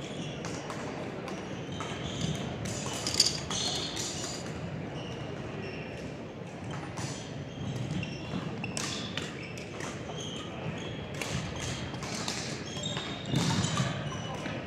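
Badminton doubles play in a sports hall: irregular sharp racket strikes on the shuttlecock and sneakers squeaking on the court floor, with a louder cluster of hits near the end.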